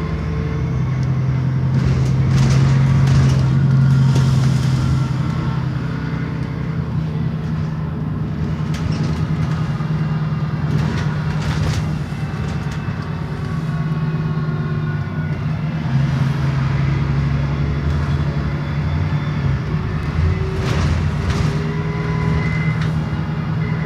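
Stagecoach London Alexander ALX400 double-decker bus's diesel engine running under way, with a steady hum that swells for a few seconds near the start. A higher whine rises and falls as the bus changes speed.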